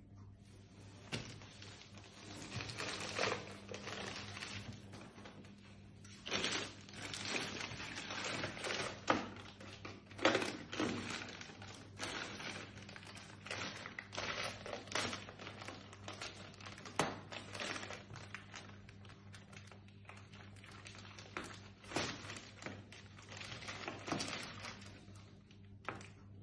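Plastic shrink-wrap around a rolled memory foam mattress crinkling and rustling in irregular bursts as hands pull at it, over a faint steady low hum.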